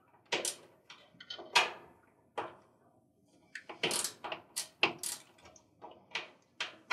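Many irregular light metallic clicks and knocks of a hand tool working the quarter-inch screws that hold down the back of a Maytag washer's control panel. They grow busier about halfway through.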